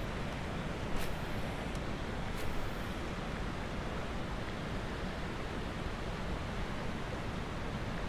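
Steady rush of river water running over rocks, with two faint clicks, about one second in and at about two and a half seconds.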